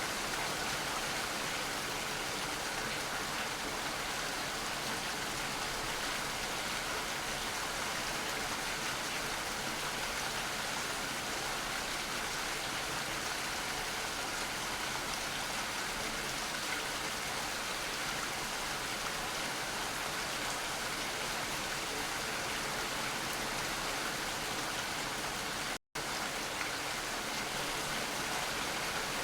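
Steady rainfall, an even hiss, with a split-second gap of silence near the end.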